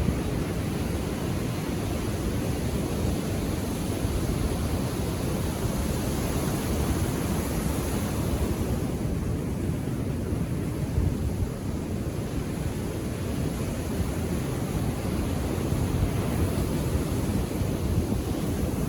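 Indian Ocean surf washing onto the beach: a steady rushing noise with a low rumble, easing slightly about halfway through.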